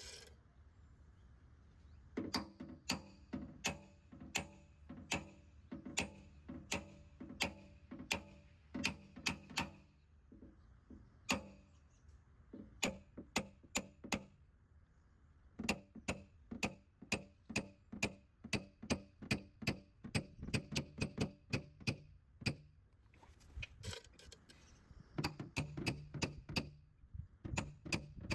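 A hammer tapping on a metal dent tool held against a car's rear quarter panel, in runs of sharp ringing metallic taps about two to three a second with short pauses between runs. This is paintless dent repair, working the metal on the dog leg.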